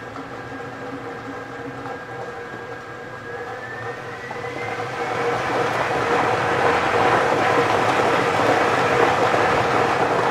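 Lottery draw machine mixing its balls: a steady motor hum whose pitch rises about three seconds in. A dense clatter of balls tumbling in the clear mixing chamber builds and gets louder from about four seconds in.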